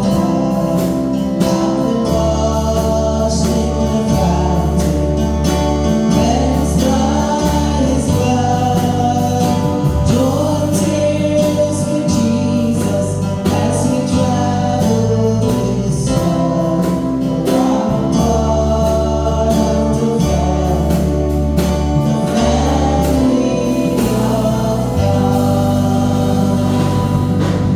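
Gospel music: group singing over instrumental accompaniment with a steady bass line.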